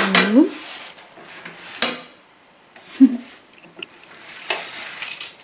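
Roller blind being lowered by pulling its bead chain: a few short rattling pulls of the chain, with a sharp click about two seconds in.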